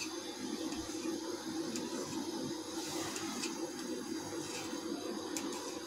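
Steady low hum with a few faint, sharp ticks scattered through it: a knife slicing a log of stiff mathri dough into small pieces, tapping the countertop.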